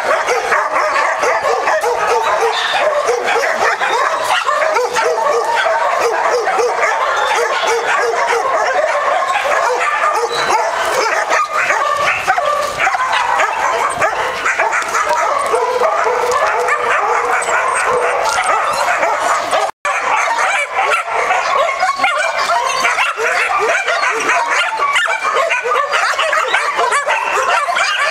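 Many kennelled dogs barking and yelping at once in a dense, unbroken chorus. The sound drops out for a moment about two-thirds of the way through.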